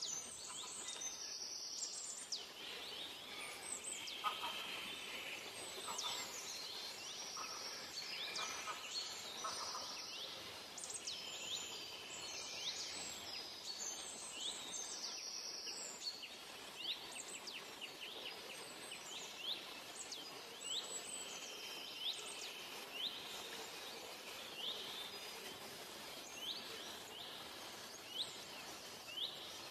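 Forest birds chirping and calling: many short, quickly sweeping high calls repeating throughout, with some longer held high notes, over a faint steady background hum.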